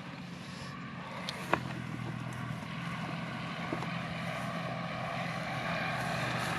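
An engine running steadily, gradually getting louder, with a single sharp click about one and a half seconds in.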